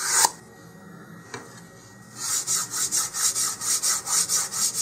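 Fine 150-grit sandpaper on a sanding block rubbing along the edge of a wooden model-rocket fin to round it over. One short stroke at the start, a pause, then from about two seconds in a steady run of quick back-and-forth strokes, about four a second.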